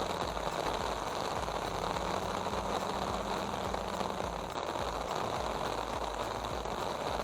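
Caterpillar D7 bulldozer's diesel engine running steadily, with a continuous hiss of heavy rain over it.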